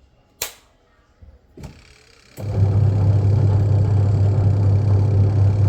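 Semi-automatic washing machine wash motor test-run after a gearbox replacement and belt refit: a couple of clicks, then about two and a half seconds in the motor starts and runs with a loud, steady hum.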